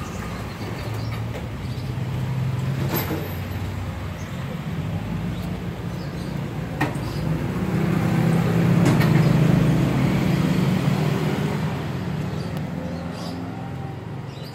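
Tabby mother cat purring close to the microphone, a steady low rumble that swells louder in the middle and eases off toward the end.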